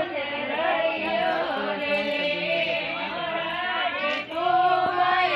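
Women singing a song together, with a short break about four seconds in before the singing comes back louder.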